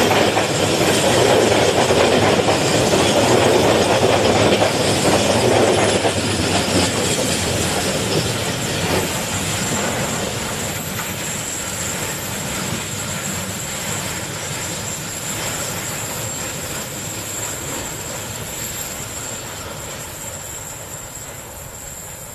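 Passenger train coaches rolling past at close range, steel wheels clattering over the rail joints. It is loudest for the first six seconds or so, then fades steadily as the train pulls away around a curve.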